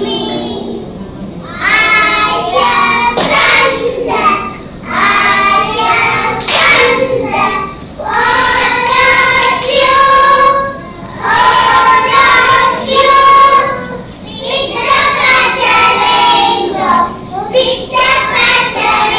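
Children singing a song in sung phrases, with held notes and short breaks between the lines.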